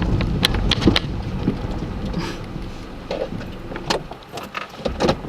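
Gale-force wind buffeting the microphone: a low rumble with scattered crackles, easing off past the middle and building again near the end.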